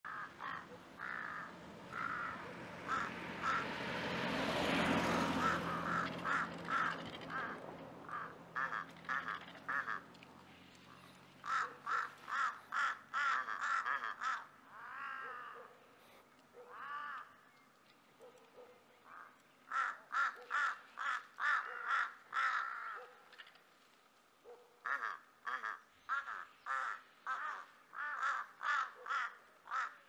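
Birds calling in bouts of rapid, harsh notes, about four a second, each bout lasting a few seconds and repeated several times. A brief rushing noise swells and fades about four to six seconds in.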